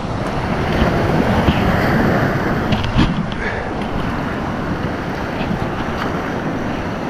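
Whitewater of a river rapid rushing loudly around a kayak running through it, mixed with wind buffeting the microphone. A few sharp splashes or knocks stand out, the loudest about three seconds in.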